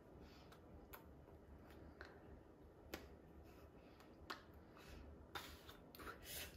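Near silence: room tone with faint clicks about once a second and a brief cluster of soft rustles near the end, the small incidental sounds of a person signing with her hands and arms.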